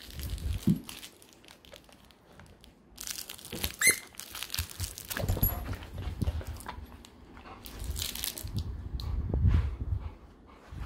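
Pitbull mix puppy moving about on a bed's blankets and playing with a plush duck squeaker toy: rustling and crinkling of fabric with soft thumps, and one short rising squeak about four seconds in.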